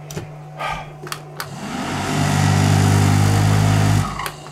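Panel switches clicking several times, then a loud electric motor hum with a rushing, fan-like noise that builds over about half a second, runs for about two seconds and cuts off suddenly, as if switched off.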